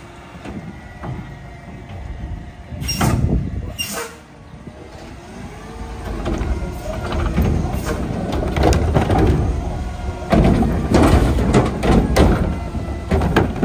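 Mack LR garbage truck's Curotto-Can automated arm at work: two sharp metal bangs about three and four seconds in as the can comes down, then the diesel engine and hydraulics run louder from about six seconds in as the arm grabs and lifts a wheeled cart.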